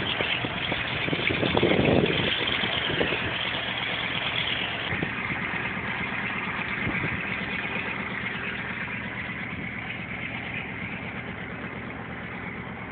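Douglas DC-3 Dakota's twin radial piston engines running steadily with a low droning hum, fading gradually as the aircraft moves away.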